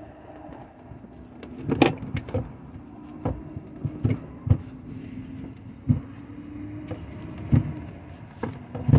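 Gloved hands working at a car battery in its tray: a string of irregular knocks and clunks of plastic and metal, about eight in all, over a steady low hum.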